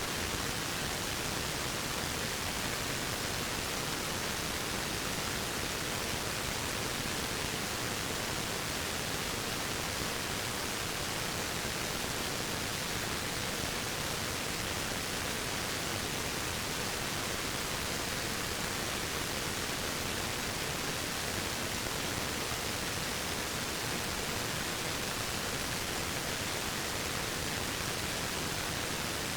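Waterfall: the steady, even noise of falling water, unchanging throughout.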